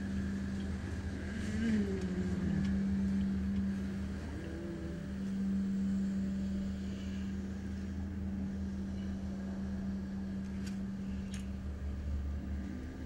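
A steady low hum, briefly broken about four seconds in, with a few faint sounds that glide in pitch.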